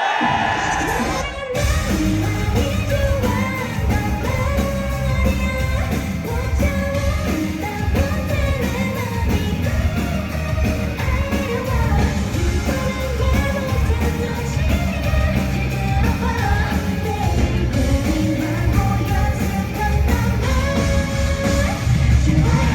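Live pop-rock band playing loud, with drums, bass and electric guitars under a female lead vocal line.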